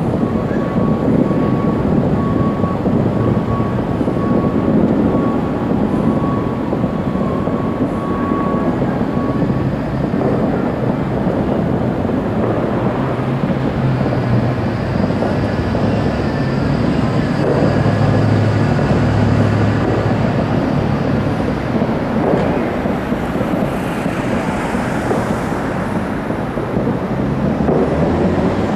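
Distant fireworks display heard as a continuous low rumble, many bursts merging together, mixed with traffic noise.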